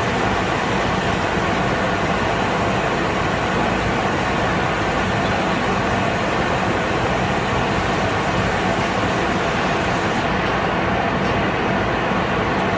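Steady running noise of industrial machinery: an even, unchanging hum and hiss, with the hiss dulling slightly about ten seconds in.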